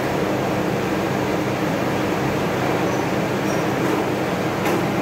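Steady mechanical drone with a low hum, like machinery or a motor running without pause. A short click sounds near the end.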